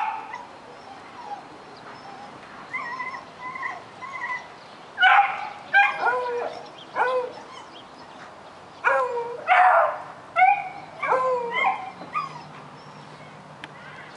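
Beagle puppy barking excitedly at a rabbit in sight, sharp high barks and yelps in clusters with short pauses, many sliding down in pitch at the end. Softer whining yips come a few seconds in.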